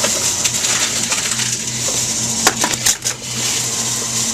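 Envipco reverse vending machine for plastic bottles running with a steady motor hum as it takes in and crushes bottles, with a few sharp clatters about two and a half to three seconds in.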